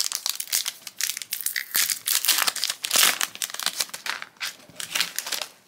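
Foil wrapper of a Sorcery: Contested Realm trading-card booster pack being torn open and handled, a dense run of crinkling and crackling.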